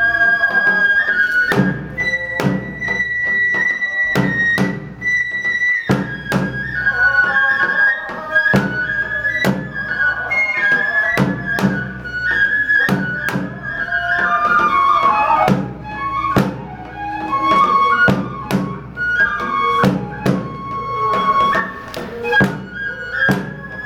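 Kagura festival music: a Japanese bamboo transverse flute plays a high, held, sliding melody over frequent, regular drum strokes.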